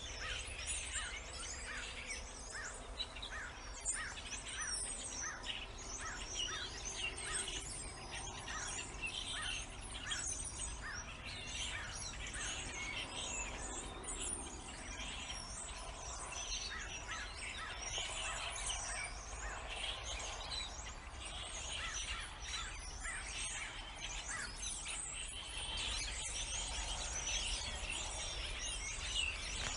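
Many birds chirping and singing at once: a dense chorus of short, high, overlapping calls over a steady low rumble.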